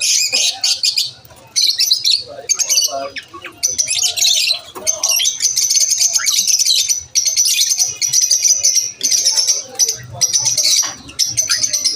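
Several lovebirds chirping: fast, high-pitched chatter in bursts of quick chirps, broken by short pauses.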